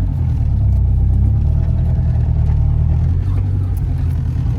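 Honda B16A inline-four engine in a Civic, driving under way, heard from inside the car as a steady, loud engine drone.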